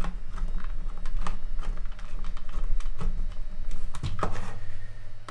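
Small hand screwdriver turning screws into a plastic tool housing: a fast, irregular run of light clicks and scrapes.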